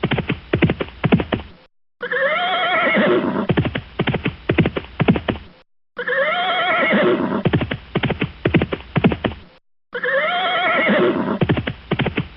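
A horse whinnying with a wavering call, followed by a quick run of hoofbeats, the pair repeating three times about every four seconds with short silent breaks between.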